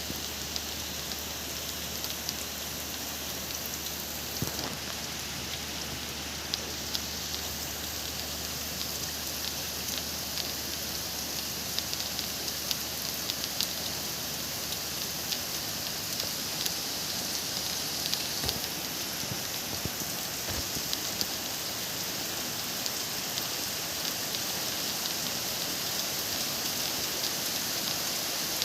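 Steady rain falling at night, a continuous hiss with many small drop ticks scattered through it, over a low steady hum.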